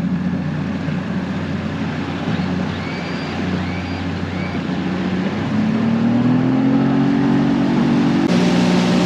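A boat's motor running under way, then throttled up about halfway through, its pitch rising and the sound getting louder as the boat speeds up.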